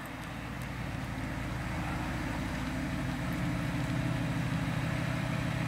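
2012 Audi R8 Spyder's 4.2-litre V8 running at low revs as the car rolls slowly forward, a steady low engine note that grows a little louder as it comes closer.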